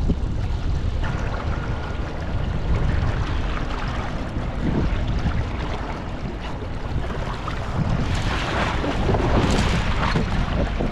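Wind buffeting the microphone over water rushing and splashing along the hull of a kayak under way. The splashing grows louder about eight seconds in.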